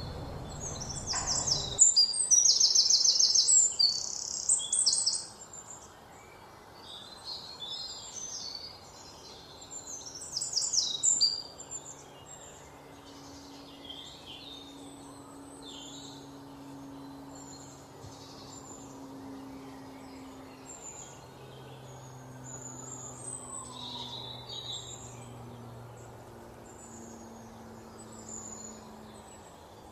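Small birds chirping in quick, high calls, loudest in a spell a couple of seconds in and again about ten seconds in, over a steady outdoor hiss with a faint low hum.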